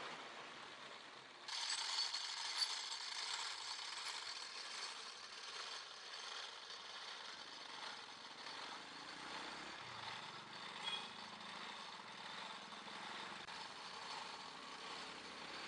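Hand-cranked coir rope-spinning wheel and its gears running steadily as the coconut-fibre yarn is twisted. The sound is fainter for the first second and a half.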